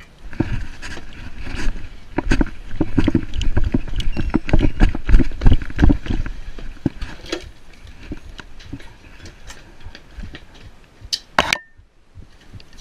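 Hurried footsteps on concrete with close-up thumps and rustle of clothing and gear, most intense for the first several seconds and then settling into lighter knocks and handling noise. A short, sharp, loud burst comes near the end.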